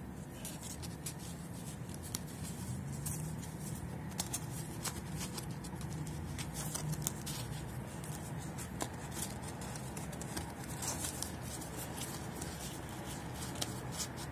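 Cardstock parts of a Foldscope paper microscope being slid and folded together by hand: scattered paper rustles and light clicks, over a steady low background rumble.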